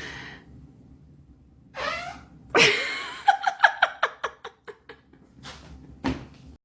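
A woman farting: a shorter wavering sound first, then a loud sudden blast that breaks into a fast sputtering run of about ten pulses over a second and a half, with two more short pulses near the end.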